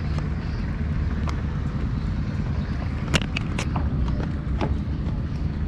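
An engine running steadily at a low pitch, with a few sharp clicks and knocks about three to four and a half seconds in.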